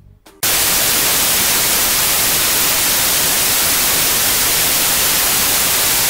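Loud television static: an even hiss of white noise that starts suddenly about half a second in and holds steady.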